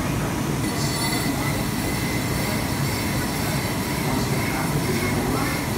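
Steady factory machinery noise: a constant low rumble with a faint, slightly wavering high whine over it.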